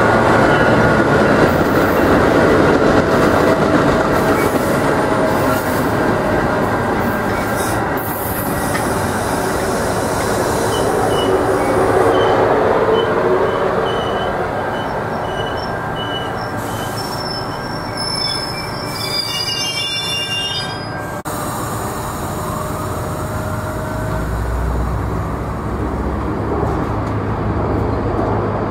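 Metra commuter train's bilevel gallery cars rolling past with a steady rumble of wheels on rail. High-pitched wheel squeals come and go through the middle stretch.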